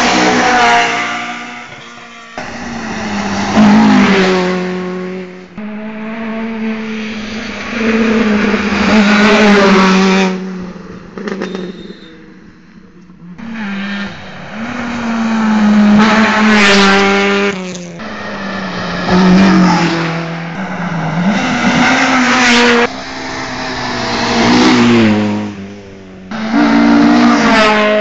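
Rally cars at full stage speed, their engines revving hard, the pitch climbing and dropping at each gear change and lift-off. The sound swells and falls several times as cars approach and pass one after another.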